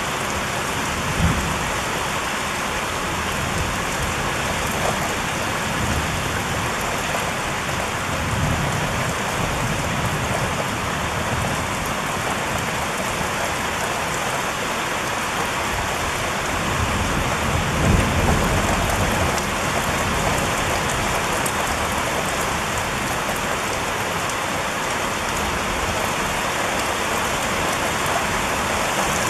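Steady rain falling, with low rumbles of thunder: a short one about a second in, another around nine seconds, and a longer, louder rumble at about eighteen seconds.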